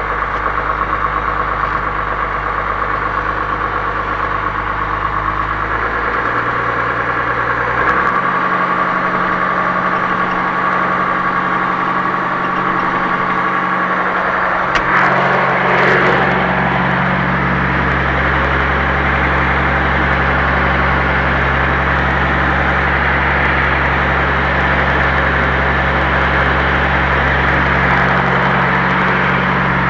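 Ford TW-20 tractor's six-cylinder turbo diesel running steadily as the tractor drives, heard from inside the cab. The engine note shifts about six and again about eight seconds in. A brief louder noise comes about fifteen seconds in.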